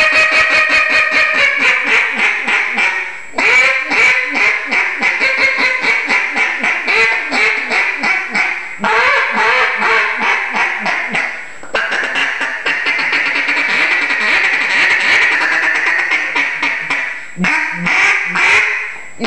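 Coco-and-acrylic mini midget mallard duck call blown by mouth, giving long runs of rapid quacking notes with brief pauses between the runs.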